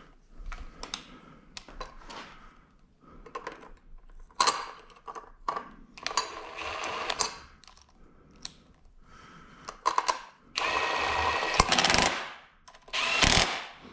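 Bosch cordless driver running bolts into rivnuts in an aluminium bracket, in short bursts: a brief run about four and a half seconds in, a longer one around six to seven seconds, the longest and steadiest about ten and a half seconds in, and a last short run near the end. Small clicks of the bolts and washers being handled come between the runs.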